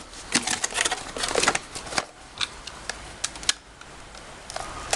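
Packaging being handled while items are taken out of a box: irregular rustling and a string of sharp clicks and crinkles, easing off for a moment past the middle.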